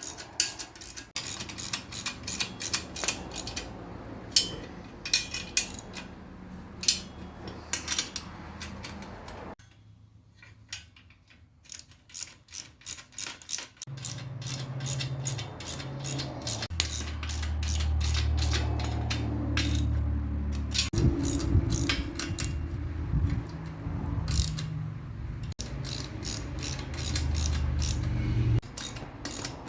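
Ratchet wrench clicking in quick runs as the nuts and bolts of a shop press frame are tightened down, with a short pause partway through. A low steady hum sits under the clicking through the second half.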